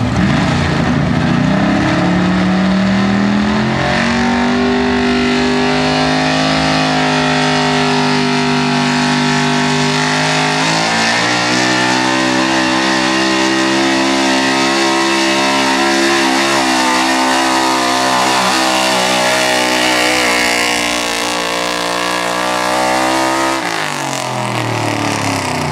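Modified 4x4 pickup's engine at high revs under load, pulling a weight-transfer sled. The pitch climbs over the first couple of seconds, steps up about four and eleven seconds in, and holds high. It drops sharply near the end as the throttle comes off, then revs up briefly again.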